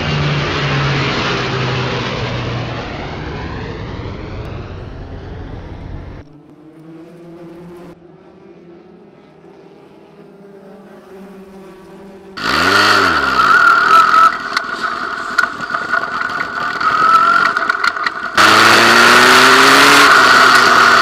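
Midget race car engines: a loud pass-by that fades away, then a quieter, more distant drone of several cars. About twelve seconds in, the loud close sound of the #64 Ford Focus midget's four-cylinder engine starts, running hard, its pitch climbing near the end.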